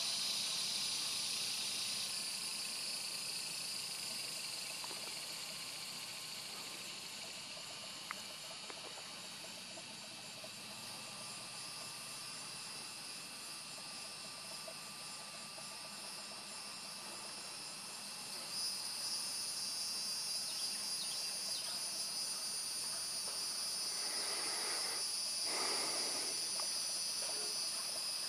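Steady, high-pitched chorus of insects buzzing and trilling, with another layer of insects joining about two-thirds of the way through. A couple of brief rushes of noise come near the end.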